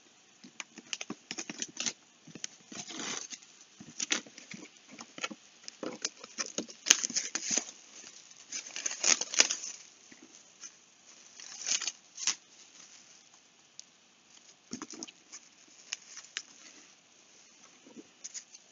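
Packaging being opened by hand: irregular rustling, crinkling and tearing, in bursts that are loudest about midway.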